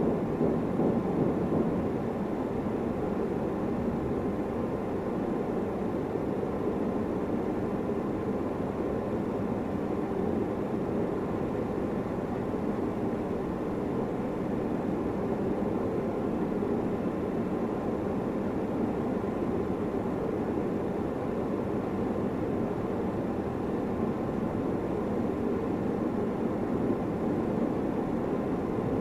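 A steady, even rumbling background noise with no distinct strokes or rhythm.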